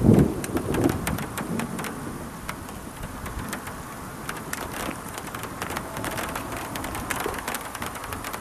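Large, scattered raindrops tapping one by one in a thunderstorm, coming thicker after about four seconds. A low rumble at the start is the loudest part.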